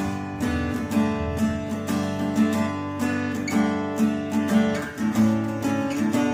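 Epiphone AJ-220SCE acoustic guitar, a solid Sitka spruce top on a mahogany body, playing a song: chords struck again and again, each ringing on under the next stroke.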